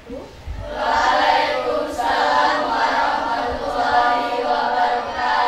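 A class of schoolchildren chanting together in unison, many voices at once, starting about a second in.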